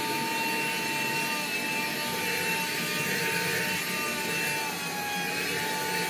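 Cordless handheld vacuum cleaner's motor running steadily with a high whine while it sucks at the carpet.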